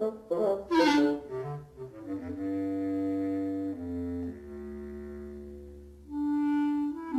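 Orchestral film score: a quick run of short notes, then slow held notes stepping down in pitch over a low bass line.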